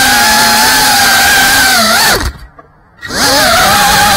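FPV racing quadcopter's brushless motors and propellers whining at high throttle, heard from the drone's own camera. A little past two seconds in, the whine dips in pitch and cuts out for under a second, then spools back up with a rising pitch.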